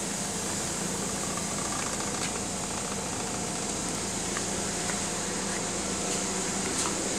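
A steady mechanical hum with a high hiss over it, and a few faint ticks.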